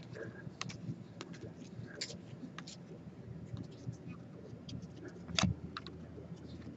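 Faint rustle and scattered light clicks of a stack of 2016 Topps Stadium Club baseball cards being handled and shuffled between the fingers, with one sharper tap about five seconds in.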